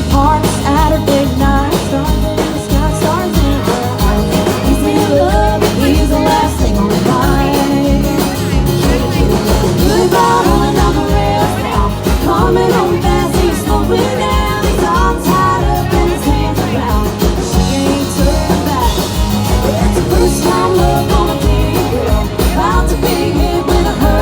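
Country band playing live, with a steady drum beat, guitars and women's voices singing.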